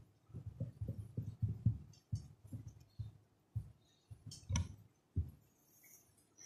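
Marker pen writing on a whiteboard: a quick run of soft low knocks as the strokes of the letters hit the board, thinning out to a few separate knocks, one sharper about two-thirds of the way through.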